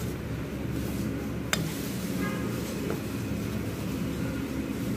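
Steady low background rumble, with one sharp click about a second and a half in from a spoon knocking against a metal mixing bowl as flour-coated chicken pieces are stirred.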